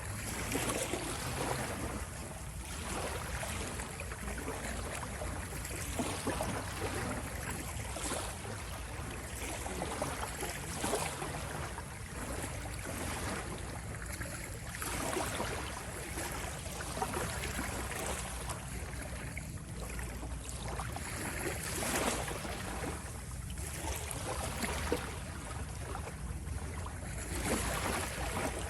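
Sea waves washing in, a continuous rush of water that swells at irregular intervals of a few seconds over a steady low rumble.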